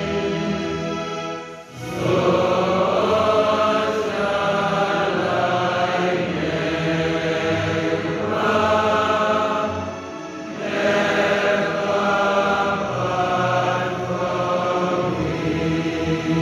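A group of voices singing a slow, chant-like hymn in long held phrases, with a brief break about two seconds in.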